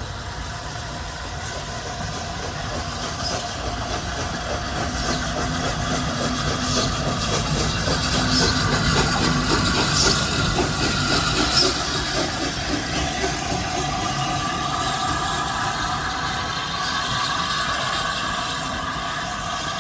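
A steam-hauled passenger train behind the Flying Scotsman running on the rails, wheels clattering over the track. It grows louder to a peak around the middle and then eases off.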